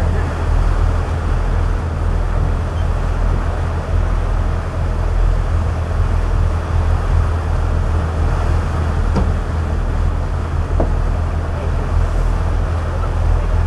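Engines of a 58-foot sportfishing boat running steadily underway, a constant low drone under the rush of the churning wake and wind. Two faint ticks a little past halfway.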